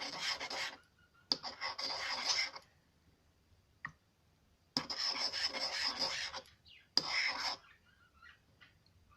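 Glue-and-borax-glycerin slime being stirred and worked in a bowl: rubbing, scraping sounds in four spells of a second or two each, with short pauses between.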